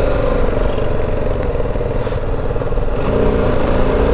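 Motorcycle engine pulling away and accelerating, heard from the bike itself with rumbling wind and road noise underneath. About three seconds in the engine note dips, then climbs again.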